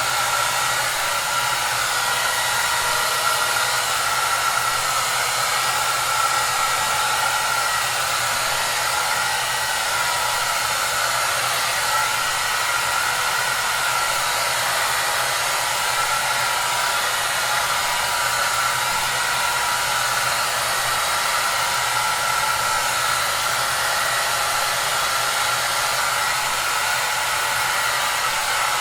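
Hair dryer running steadily: an even, unbroken rush of blown air with a faint steady whine in it.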